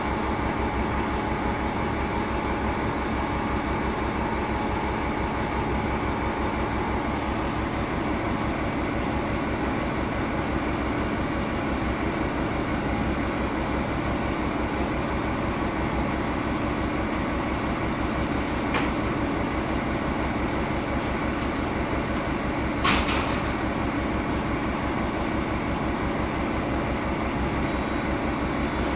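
Mercedes-Benz OM 936 G turbocharged natural-gas engine and its cooling fan running steadily, heard loud inside the rear of the Conecto NGT bus, with a pulsing low hum. A couple of brief knocks stand out about two-thirds of the way in.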